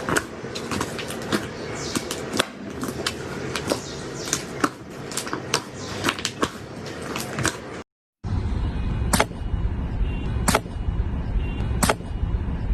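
Slime being squished and poked: a quick run of sharp clicks and pops over a sticky crackle. A short gap about eight seconds in gives way to another slime clip with a low rumble and a few louder pops about a second and a half apart.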